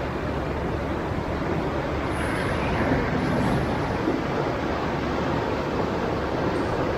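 Sea waves breaking on a rocky shore: a steady rush of surf that swells a little two to three seconds in.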